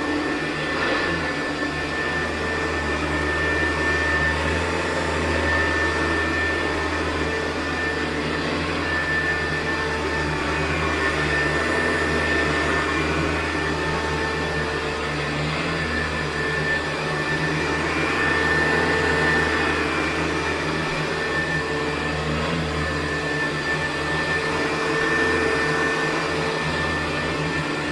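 Hoover U4007 upright vacuum cleaner with a 4-row brushroll running steadily while vacuuming carpet. It is a continuous motor hum and whine whose level swells and eases every few seconds.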